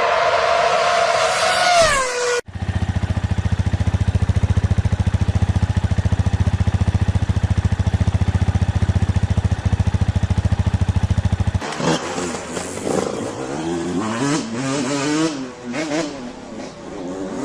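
Small single-cylinder motorcycle and scooter engines. A high running whine drops in pitch and breaks off about two seconds in. Then a steady, evenly pulsing low engine note runs for about nine seconds, giving way near the end to an engine note that rises and falls.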